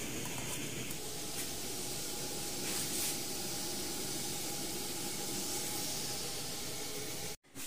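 Coleman Dual Fuel 533 pressurized liquid-fuel camp stove burning at a strong flame under a pot: a steady hiss, cut off suddenly near the end.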